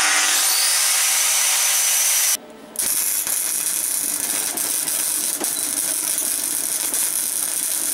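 Electric arc welding on steel, a loud continuous crackle of the arc. It runs for about two and a half seconds, breaks off briefly, then is struck again and carries on.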